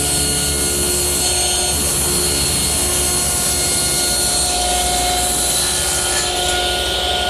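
Table saw running at full speed with a steady whine while its blade crosscuts a plywood panel pushed through on a homemade panel-cutting sled.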